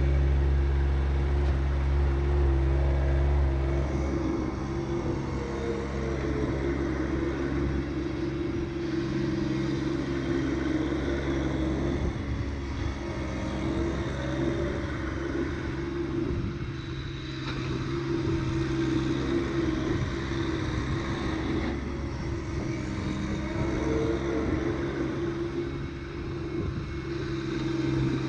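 John Deere 1025R subcompact tractor's three-cylinder diesel engine running steadily, with a heavier low rumble for the first few seconds.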